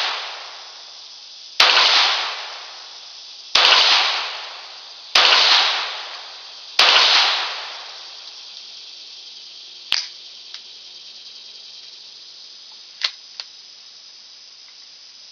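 Four slow, single shots from a Ruger Mk III 22/45 .22 LR pistol, about one every one and a half to two seconds, each followed by roughly a second of echo under the shelter roof. A few light clicks follow near the end as the pistol is handled.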